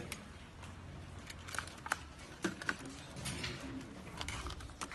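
Scattered light clicks and taps of a Holy Stone U818 drone's plastic frame and arms being handled, with a few sharper clicks about two seconds in and again near the end.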